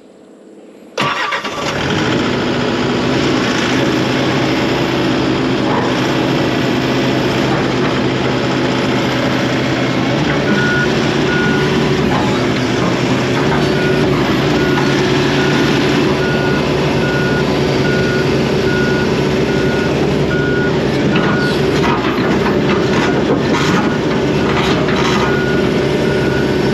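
John Deere 135D excavator's Isuzu diesel engine starts up about a second in and runs steadily. From about ten seconds in, the machine's travel alarm beeps repeatedly as it moves.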